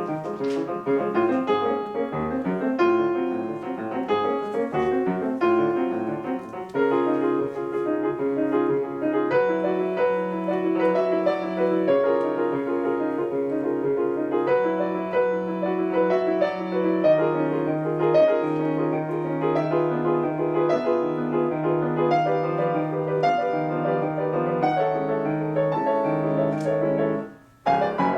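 Solo piano playing a brisk classical piece: quick repeated notes over held low bass notes, with a brief break about a second before the end.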